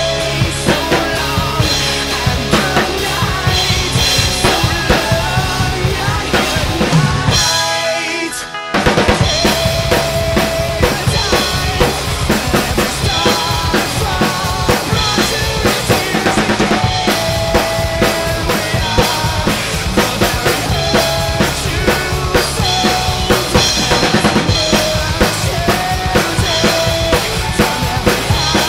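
Acoustic drum kit played hard and fast along with a rock backing track: kick drum, snare and crashing cymbals in a dense beat. About eight seconds in, the kick and low end drop out for about a second, then the full beat comes back in.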